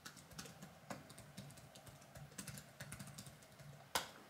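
Typing on a MacBook laptop keyboard: a run of quiet, irregular key clicks, with one sharper click near the end.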